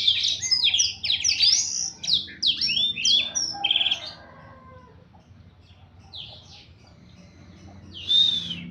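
Blackthroat (black-throated canary) singing a fast, dense string of high sweeping twittering notes for about four seconds, then falling mostly quiet with a few scattered notes, and giving one loud call near the end.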